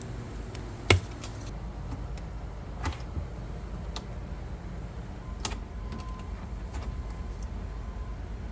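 A few sharp clicks, the loudest about a second in, over a low steady hum.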